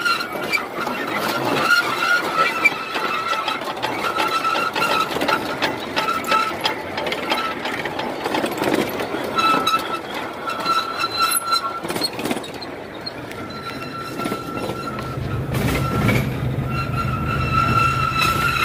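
Small excursion train running along the track, its wheels squealing in a steady high tone that comes and goes, with clicks over the rail joints. A low rumble builds near the end.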